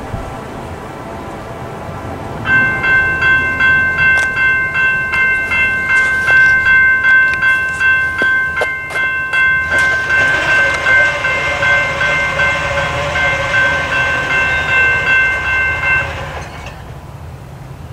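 General Signals Type 2 electronic crossing bell ringing with rapid, even, high-pitched dings. It starts a couple of seconds in as the crossing activates and stops shortly before the end, as the gates come down. In the second half a train horn sounds in the distance under it.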